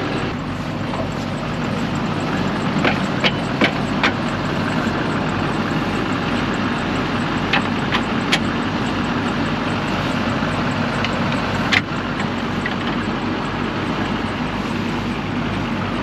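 Engine of a compact mini loader running steadily, heard from inside its cab, with a handful of short sharp clicks or knocks: a cluster about three seconds in, a few more around eight seconds, and one near twelve seconds.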